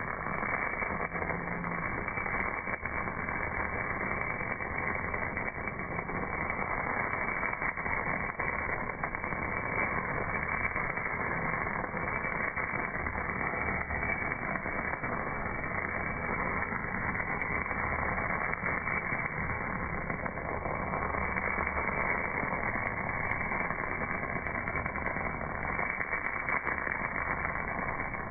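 MAG welding arc burning on a casting: a steady, dull crackling hiss.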